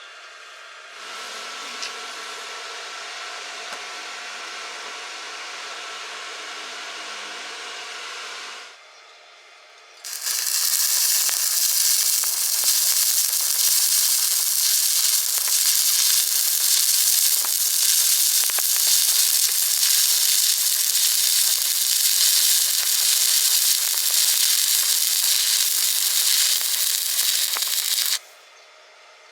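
Stick (arc) welding: a steady, loud hissing crackle of the electric arc that lasts about eighteen seconds and cuts off suddenly near the end. Before it comes a quieter steady sound with several held tones for about eight seconds.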